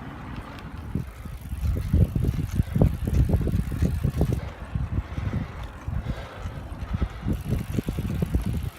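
Wind buffeting the microphone of a camera on a moving bicycle: an irregular low rumble with ragged gusts, strongest from about two seconds in.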